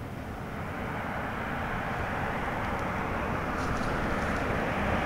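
An SUV approaching along the road, its engine and tyre noise growing steadily louder as it draws near.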